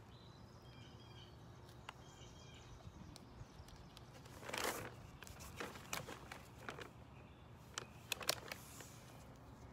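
Quiet rustling and small clicks of a half-mask respirator's facepiece and elastic head straps being pulled on and adjusted. A louder rustling rush comes about four and a half seconds in, and a quick cluster of clicks near the end.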